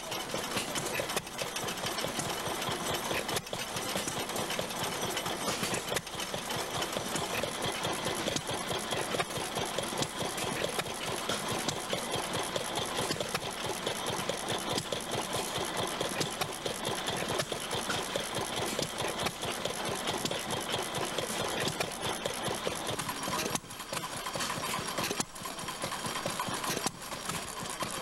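Antique stationary gas engines running, a steady fast clatter of firing and mechanical clicking, with the sound shifting to a different engine near the end.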